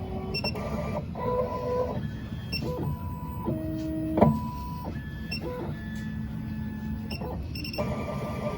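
Miracle A9 key cutting machine's stepper motors whining as they drive the probe through its automatic calibration. The whine jumps between several steady pitches as the axes start and stop, and there is a sharp knock about four seconds in.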